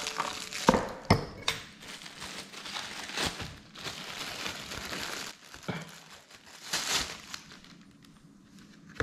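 Clear plastic bag crinkling as it is pulled off a glass canister jar and handled, with a few sharp knocks and clicks along the way; the rustling fades toward the end.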